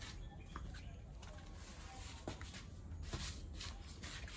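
Faint footsteps and scuffs of a person walking out through a doorway, irregular light steps over low background rumble.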